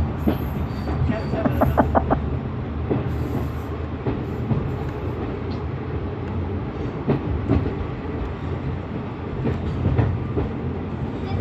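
A heritage passenger train heard from on board while under way: a steady low running rumble, with the wheels clicking over rail joints in a quick run of clicks about two seconds in and in scattered single clicks later.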